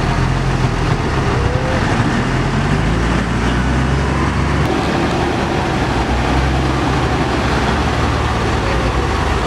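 Heavy diesel engines of a wheel loader and a loaded truck running under load, the loader pushing the truck through mud. The engine note holds steady and wavers a little in pitch.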